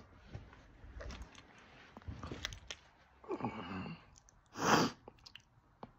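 A man's breathing and mouth sounds close to the microphone: small clicks, a short hummed murmur about three and a half seconds in, and a loud exhale a little under five seconds in.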